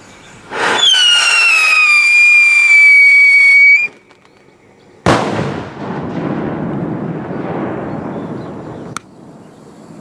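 A whistling firework lets out a loud, shrill whistle for about three seconds, falling slowly in pitch before it cuts off. About a second later comes a sharp bang, followed by a hissing noise that stops abruptly some four seconds later.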